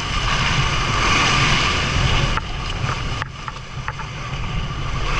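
Wind on the microphone and water noise aboard a small boat at sea, over a low rumble. The noise drops about two and a half seconds in and again a little later.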